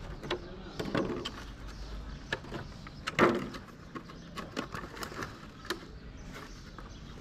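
Thin clear plastic food tubs being handled and set on concrete: a run of irregular clicks and crackles, loudest about three seconds in.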